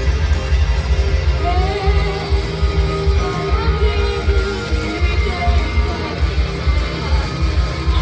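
Loud rock music with electric guitar and a heavy, pulsing beat, a voice singing a melody over it from about a second and a half in.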